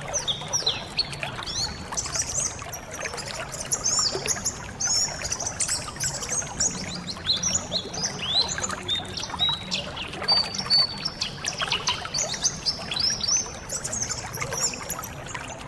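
A flock of white-eyes twittering constantly, many quick high chirps overlapping one another, over the steady sound of trickling, splashing water.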